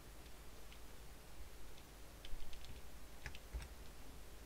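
A handful of sparse computer keyboard keystrokes and clicks, in small separate groups, typing a few characters of code.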